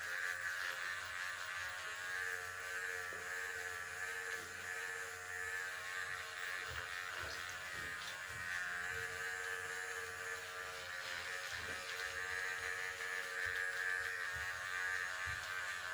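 Electric facial cleansing brush running with a steady buzz.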